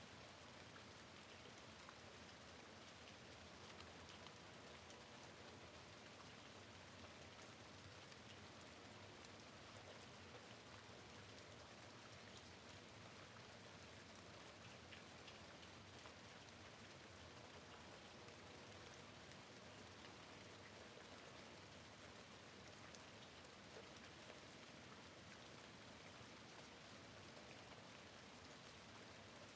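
Faint, steady rain, with scattered individual drops ticking through an even hiss.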